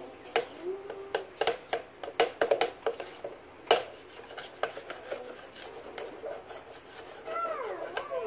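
A utensil stirring and scraping batter in a blender pitcher, with a run of sharp clicks and knocks against its sides, the loudest about three and a half seconds in. A short, high sliding call is heard near the end.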